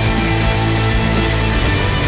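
Rock background music with electric guitar over a steady drum beat.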